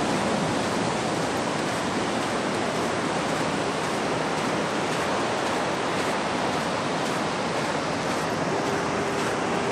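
Ocean surf breaking along a sandy beach: a steady, unbroken rush of waves.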